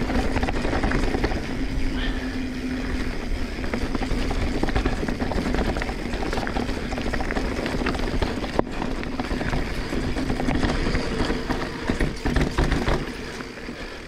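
Transition Sentinel full-suspension 29er mountain bike being ridden along a dirt trail: steady rolling tyre noise and rumble with many small rattles and clicks from the bike over bumps, and a steady low hum.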